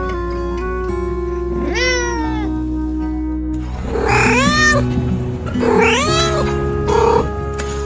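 A cat meowing over soft guitar background music: a falling meow about two seconds in, then two louder meows that rise and fall, and a short mew near the end.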